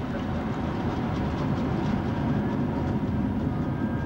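Jet airliner cabin noise on the landing roll: a loud, steady rumble of engines and wheels on the runway, with rattling through the cabin. A faint high whine joins about three seconds in.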